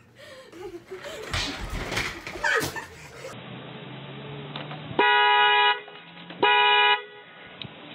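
Car horn sounding twice: two steady blasts of under a second each, about a second and a half apart.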